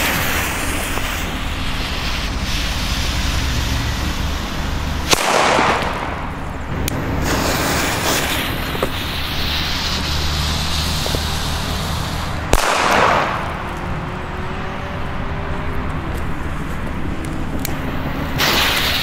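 Two loud firecracker bangs from Panda Booster D Böller, about seven seconds apart, each trailing off in a short echo. Near the end a hiss starts up.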